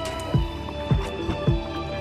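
Background music with a steady beat: a deep kick drum about twice a second under held, sustained notes.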